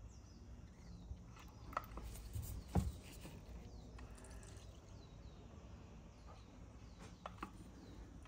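Faint knocks and clicks as a wooden block pumps the piston of an Acura NSX brake master cylinder during bench bleeding, the loudest knock about three seconds in. A faint high chirp repeats in the background.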